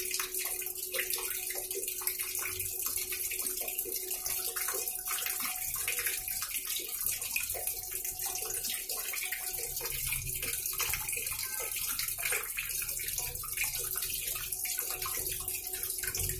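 Water pouring in streams from the top of a Videocon Digi Zaara Plus top-loading washing machine's tub and splashing onto the water standing in the drum as the machine fills. A faint steady hum sits underneath.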